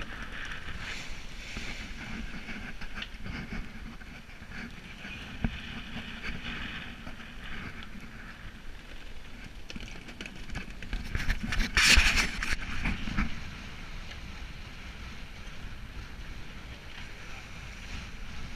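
Wind and water noise aboard a sailing yacht under way in rough seas: sea rushing along the hull and wind buffeting the microphone. A louder rush about twelve seconds in is the loudest moment.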